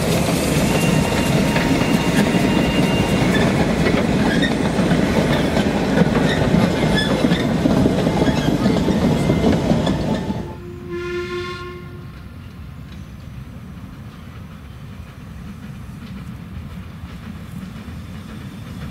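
Narrow-gauge steam locomotive running: a loud, steady noise of steam and machinery for about ten seconds. Then the level drops suddenly and a whistle sounds once for about a second, leaving a quieter low rumble.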